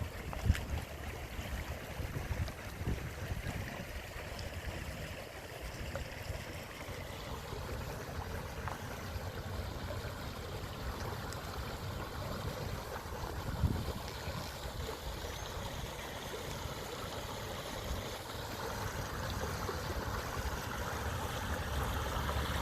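Running water with a steady rushing, under an uneven low rumble; two brief knocks stand out, about half a second in and near the middle.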